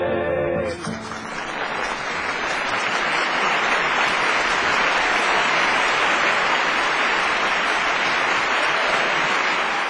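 Close harmony singing ends on a held chord about a second in, then an audience applauds steadily.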